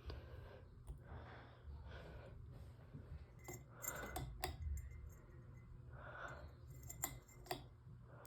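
Ceiling fan running: a faint steady motor hum with soft swells and scattered sharp clicks, several close together about halfway through and two more near the end.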